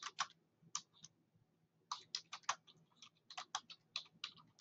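Faint computer keyboard typing: irregular keystrokes in short runs, with a pause of almost a second near the start.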